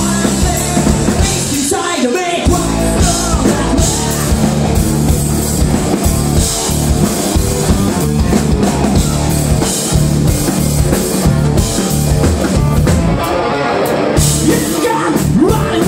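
Live rock band playing: two electric guitars, bass guitar and drum kit, loud and continuous.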